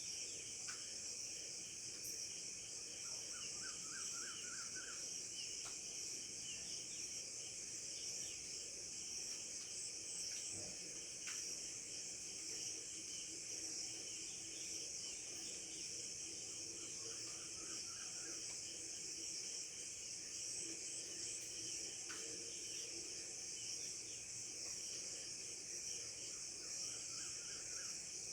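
Steady high-pitched chorus of insects, with a short rapid bird trill heard three times.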